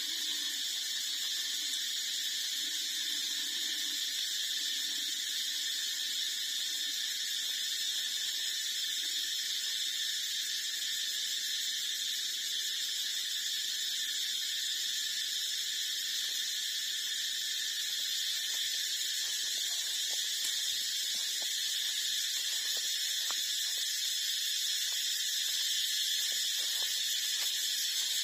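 A steady, shrill high-pitched drone in several bands that holds unchanged throughout, with faint soft clicks in the second half.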